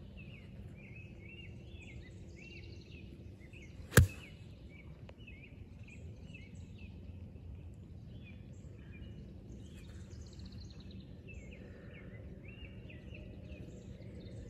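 A golf club strikes a rubber bouncy ball once, a single sharp click about four seconds in. Faint bird chirping runs in the background.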